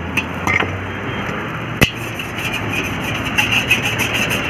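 Metal ladle and spoon clinking and scraping against a steel wok and sauce containers: a few light clinks, one sharp clink a little under two seconds in, then quick rhythmic scraping toward the end, over a steady background hiss.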